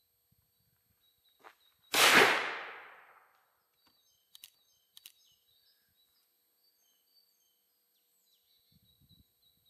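A single shot from an 1861 Remington-Elliot Old Model Army percussion revolver: a sharp black-powder report about two seconds in that rings out and dies away over about a second. A few faint clicks follow a couple of seconds later.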